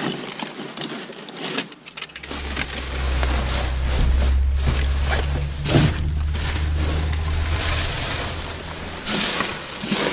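Plastic bags, wrapping and cardboard rustling and crinkling as rubbish is rummaged through by hand, with sharper crackles now and then. A low, steady droning hum, like an engine running, comes in about two seconds in and fades near the end.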